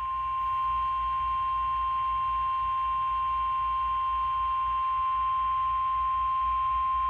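NOAA Weather Radio's 1050 Hz warning alarm tone: a single steady electronic tone, broadcast as the weekly test of the warning alarm system.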